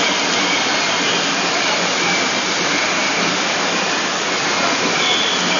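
Steady hubbub of a large crowd of protesters on foot, an even wash of noise with no single voice standing out.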